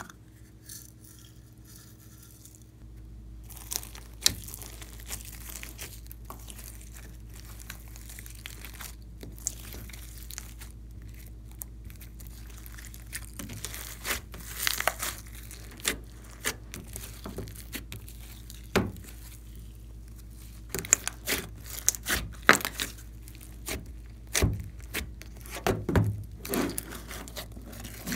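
Hands squishing and kneading glossy slime loaded with sequins, glitter and foam beads: a run of sticky crackles, pops and snaps that gets denser and louder in the last several seconds.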